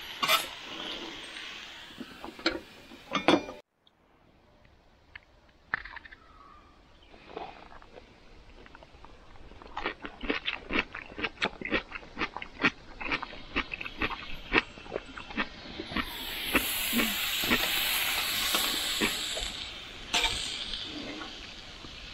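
Cooking at a propane grill: a quick run of sharp clicks and taps of utensils, then a few seconds of loud sizzling hiss near the end.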